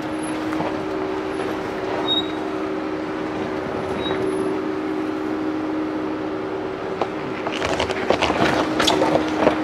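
Ford Bronco crawling slowly down a rocky trail: a steady engine hum over tyre and gravel noise. From about three quarters of the way in it turns louder and rougher, with crunching and short knocks as the tyres go over rocks.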